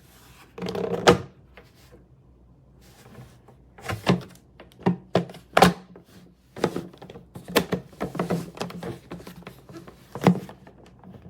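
A series of irregular hard knocks and thunks, a dozen or so over several seconds, with the sharpest one near the end.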